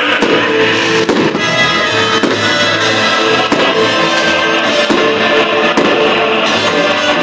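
Music playing throughout, with held instrumental notes and sharp hits roughly once a second.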